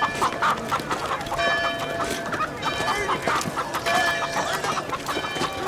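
Chickens clucking, many short calls one after another, with a few longer held calls among them.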